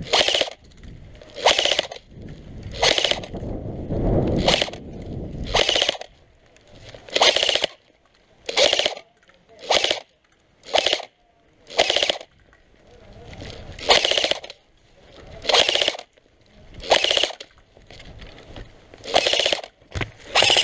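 Airsoft rifle firing short bursts on full auto, about fifteen rapid rattling bursts a second or so apart.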